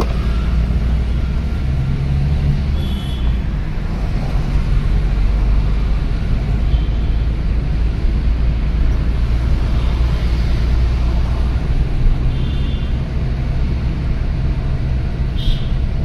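Car driving in city traffic, heard from inside the cabin: a steady low engine and road rumble. A few short, high-pitched tones sound through it.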